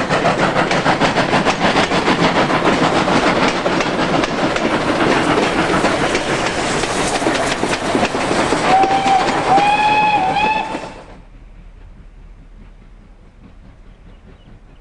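Steam-hauled passenger train rolling past close by, carriage wheels clattering over the rail joints. About nine seconds in, a steam locomotive whistle sounds in a few short, wavering blasts. Shortly after, the sound drops suddenly to a faint background.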